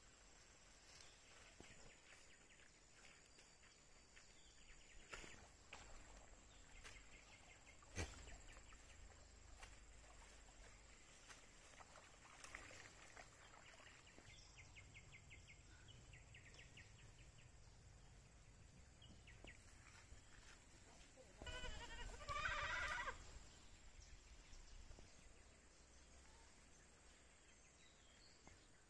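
A goat bleats once, a wavering call of about a second and a half, around three-quarters of the way through. Otherwise quiet, with a single sharp knock about eight seconds in and a few faint ticks.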